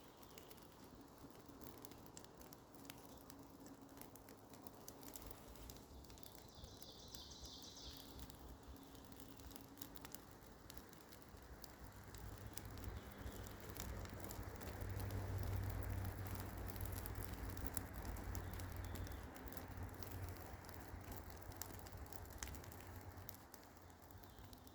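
Rain pattering with many fine drop ticks, and a brief high chirping about a quarter of the way in. A low rumble swells about halfway through and dies away near the end.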